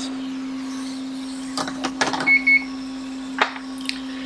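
A steady electrical hum from bench equipment on an electronics repair bench, with a few sharp clicks and taps of handling. A brief high double beep comes about two seconds in.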